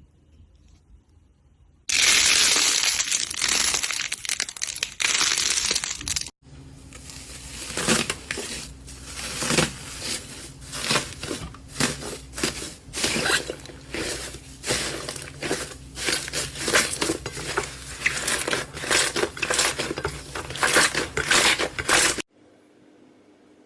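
Slime being squeezed and worked by hand. About 2 s in comes a dense crinkling, crackling stretch of about 4 s. After a sudden cut it gives way to a long run of irregular crisp crackles and pops, which stops abruptly near the end.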